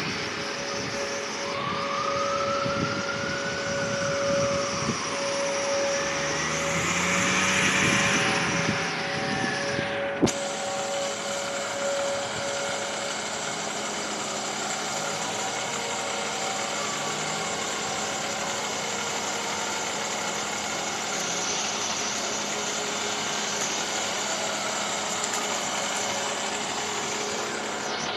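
Steady running noise of a fire department aerial ladder truck's engine, a hum with constant whining tones. It swells louder midway and falls back, with one sharp click about ten seconds in.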